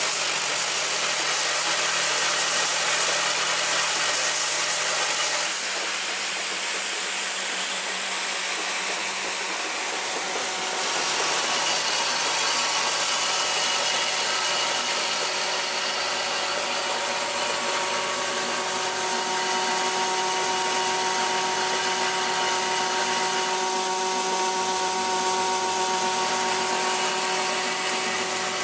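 Screw and bonded-washer assembly machine running at production speed: the vibratory bowl feeder hums while 5.5 × 100 mm screws rattle and hiss around the bowl and along the feed track, over the assembly head's running mechanism. The noise is a steady, dense rattle and hiss with a few constant tones.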